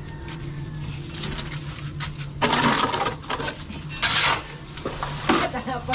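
A shovel scraping and scooping wet concrete mix off a concrete floor into a bucket: a few short rasping strokes, the loudest about two and a half and four seconds in. A steady low hum runs underneath.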